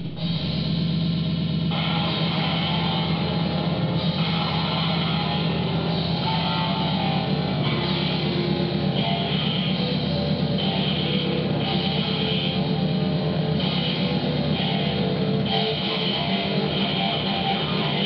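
Live harsh noise improvisation played from computer software: a dense, continuous wall of distorted noise over a steady low drone, its upper texture switching every second or two.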